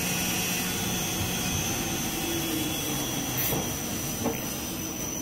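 Band saw cutting machine for industrial tissue rolls running: a steady mechanical whir with a high whine, a click about three and a half seconds in and a short knock just under a second later.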